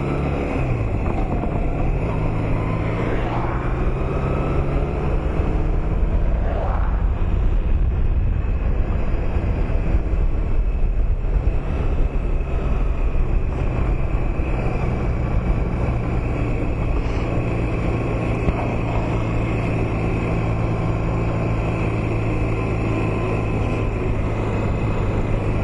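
2008 Honda Nighthawk 250's parallel-twin engine running under way, with heavy wind rush over the microphone. Its pitch changes a few times in the first several seconds, then holds steady at cruising speed.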